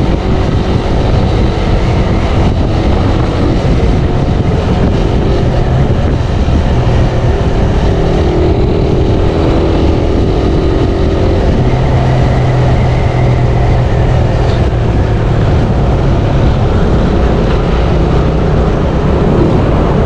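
Motorcycle engine running while riding at road speed, its pitch shifting a few times, over a heavy rumble of wind and road noise.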